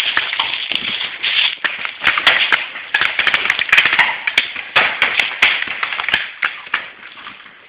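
Running footsteps crunching and rustling through dry leaf litter and brush, with many irregular sharp clicks and snaps. The noise fades near the end.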